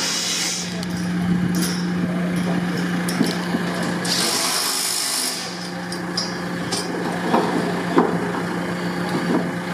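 A heavy vehicle's engine running with a steady hum, a burst of loud hissing about four seconds in that lasts just over a second, and scattered sharp metal knocks and clanks of steel scaffold tubes being handled.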